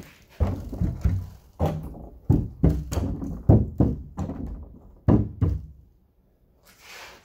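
Large upright wood slabs knocking and thudding against each other as they are shifted, a string of dull thunks, then a lull near the end.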